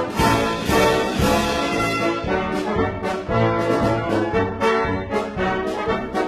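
Brass band music, trombones and trumpets playing a tune with a steady beat.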